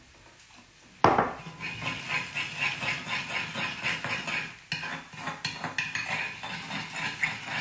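Metal spoon stirring a honey-and-oil dressing in a ceramic bowl: a sharp clink about a second in, then quick, continuous clinking and scraping of the spoon against the bowl.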